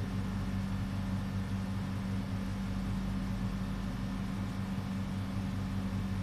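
A steady low machine hum with a constant droning pitch, unchanging throughout.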